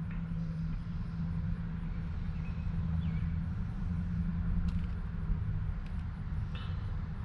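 Steady low mechanical hum, with a few faint light clicks in the second half.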